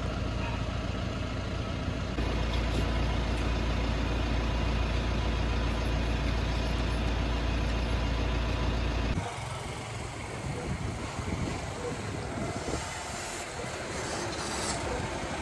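A motor vehicle running with a steady low rumble. About nine seconds in, the sound cuts abruptly to a quieter, more varied mix of outdoor noise.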